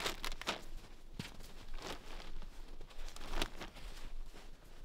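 Footsteps crunching in packed snow: a few slow, irregular steps.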